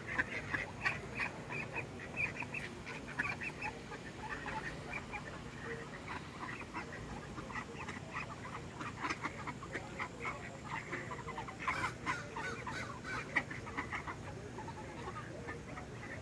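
A flock of mallards giving many short, soft quacks and chattering calls in quick succession while feeding on grass.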